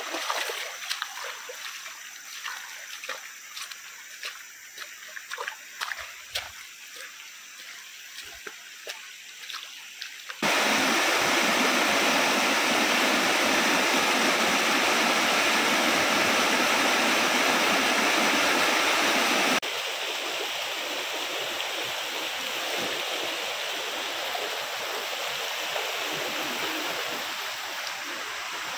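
Shallow river running over stones, with scattered splashes and clicks as someone wades through it. About ten seconds in, the sound jumps to a loud, steady rush of water pouring over a small rock cascade; after about nine seconds it drops back to a quieter, even stream flow.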